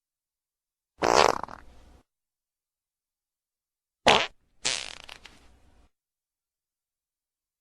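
Fart sound effects: one fart about a second in, then two more close together around four seconds in, each starting sharply and tailing off, with complete silence between them.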